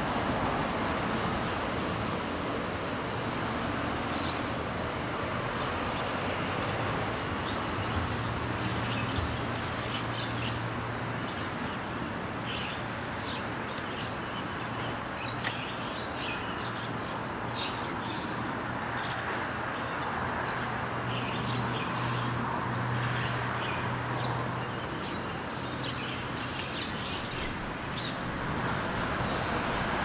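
Steady hum of road traffic, with birds chirping again and again over it from several seconds in.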